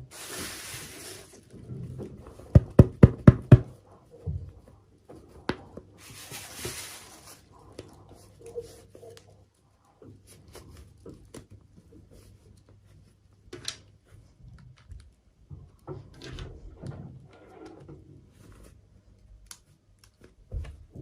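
Hands unboxing miniature toys: scattered clicks and taps on small plastic pieces and packaging, with a quick run of about seven sharp taps about three seconds in. Two short bursts of rustling packaging come at the start and again about six seconds in.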